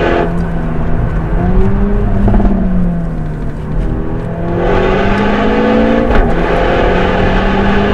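Renault Megane RS's turbocharged four-cylinder engine being driven hard through bends. The note climbs and falls as the car accelerates, eases off for a moment mid-way, then pulls again, with a brief break about six seconds in and a sharp drop at the end.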